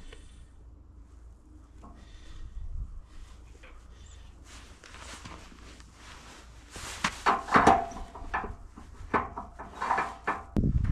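Wooden knocking and scraping as timber is handled, faint at first and then a burst of knocks and scrapes in the second half, with a louder low rumble starting near the end.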